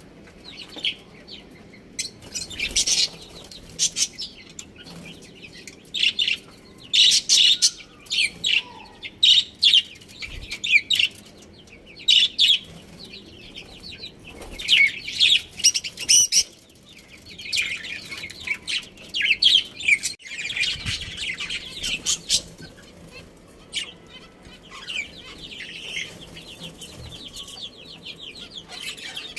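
Budgerigars chirping and chattering in rapid bursts of quick, high chirps, with short quieter pauses between bursts.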